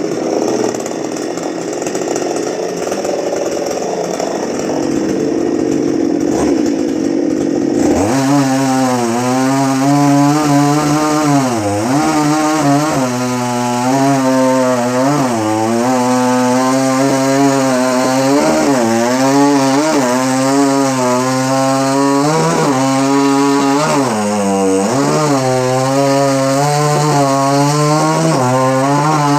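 Chainsaw cutting coconut palm wood. For the first several seconds it is a dense, noisy cutting sound. From about eight seconds in, a clear high engine note takes over, dipping in pitch every second or two as the chain bites and the engine is loaded.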